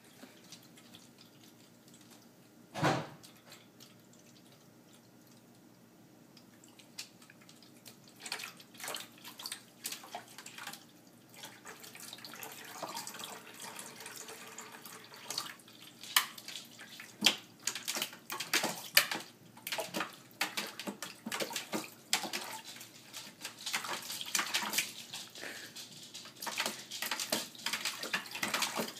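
A husky puppy splashing and pawing at the water in a pet drinking fountain: uneven splashes and drips starting about eight seconds in and growing busier toward the end. A single thump comes about three seconds in, and a faint steady hum runs underneath.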